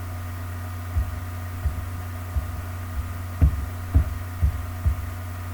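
Steady low electrical hum with about eight soft, low thumps, irregularly spaced, the loudest a little after the middle.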